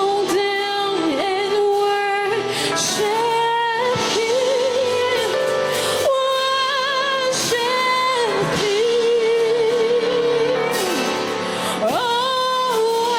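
Worship music: a woman's voice singing long, held notes with a slight waver over steady instrumental backing.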